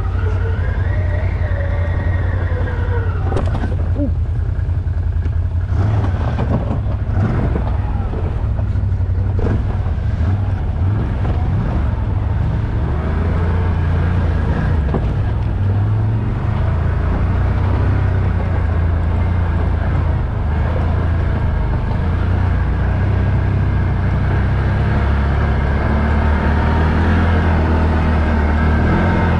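ATV engine running as it is ridden, its pitch rising and falling with the throttle, with a few knocks in the first ten seconds or so.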